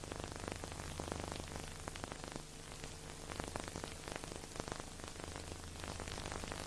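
Dense crackle and hiss of old-recording surface noise, with a low steady hum underneath.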